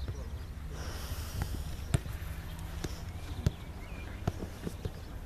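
A football being kicked back and forth: a series of sharp thuds of foot striking ball, the loudest about two seconds in and again about three and a half seconds in.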